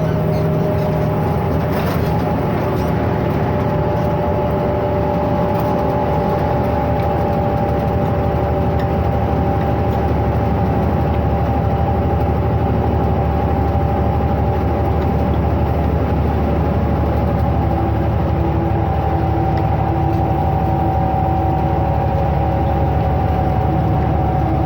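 Ikarus 260 city bus on the move: its diesel engine and drivetrain running steadily under way, a low rumble with a steady whine that drifts slowly in pitch.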